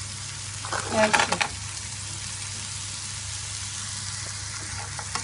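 Chopped onions and tomatoes sizzling steadily as they fry in a pan with butter and oil.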